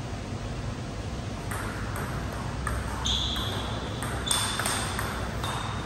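Table tennis rally: the ball clicking sharply off the paddles and the table, starting about a second and a half in and going on at about two to three hits a second.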